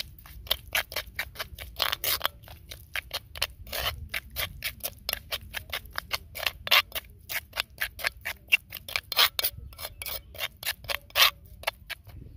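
Metal spoon scraping and clicking against a terracotta clay bowl while mixing a wet paste of crushed garlic, ginger and spices: quick, irregular strokes, several a second, stopping just before the end.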